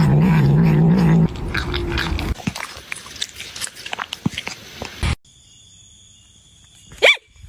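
A pet animal's loud, wavering call for about a second, followed by a few seconds of quick, irregular crunching clicks like biting or chewing. After a sudden cut, a short falling squeal sounds near the end.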